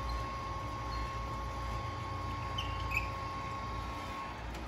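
Wort recirculation pump running with a steady low hum and a thin steady whine, with a few short, faint high chirps about three seconds in.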